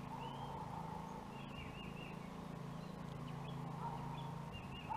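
Birds singing, short repeated phrases of three or four high notes, over a steady low hum.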